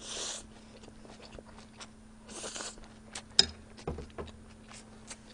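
A person eating spicy fried instant noodles close to the microphone: a short slurp of noodles at the start and another about two and a half seconds in, then chewing with small wet mouth clicks and smacks. A faint steady hum runs underneath.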